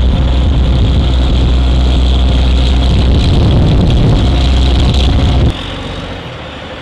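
Heavy military truck's diesel engine running with a steady low drone, with wind on the microphone; about five and a half seconds in it drops suddenly to a quieter, steady engine sound.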